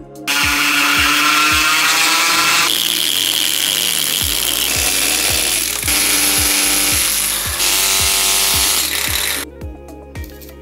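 Electric power tool grinding marble, running steadily in several spliced stretches, its whine changing pitch from one stretch to the next, and stopping near the end. Background music with a steady beat plays underneath.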